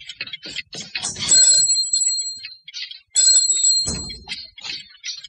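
A small shop-door bell rings twice, about a second each time, as the door is opened and shut, with small clicks around it and a low knock about four seconds in.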